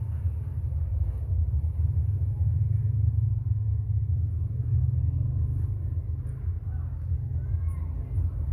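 A steady low rumble, with a few faint short squeaks near the end.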